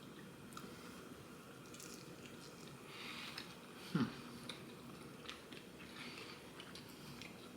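Close-up eating sounds: a person chewing and biting into a burger and fries, with small wet mouth clicks. About four seconds in there is one short, louder sound that falls in pitch.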